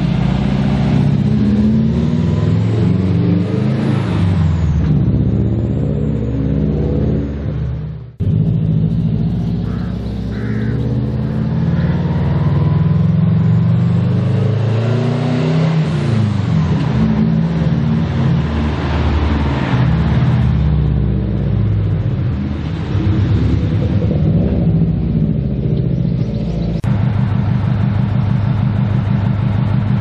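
Subaru Impreza's flat-four engine and exhaust rumbling as the car drives by, pitch rising and falling as it revs and eases off. The sound breaks off abruptly about eight seconds in and picks up again. Near the end it settles into a steady, even low-rev burble.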